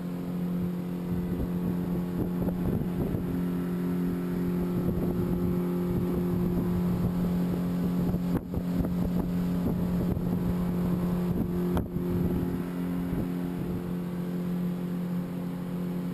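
Outboard motor running steadily with the boat underway at speed, with water rushing and slapping against the aluminium hull and wind buffeting the microphone. The sound drops out briefly twice, about eight and twelve seconds in.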